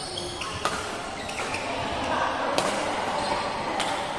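Badminton rackets striking a shuttlecock during a doubles rally: several sharp hits spaced irregularly, between about half a second and two seconds apart, ringing in a large sports hall. Voices murmur in the background.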